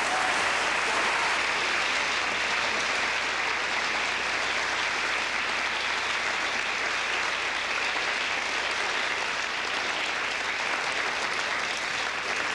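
Theatre audience applauding steadily, the ovation at the end of the act.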